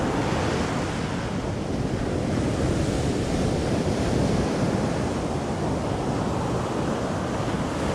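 Ocean surf breaking and washing up a sandy beach, a steady rush, with wind buffeting the microphone.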